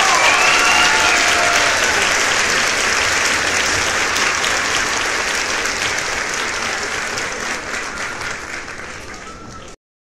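Audience applauding steadily, a few voices calling out over it in the first couple of seconds; the clapping slowly fades and cuts off suddenly near the end.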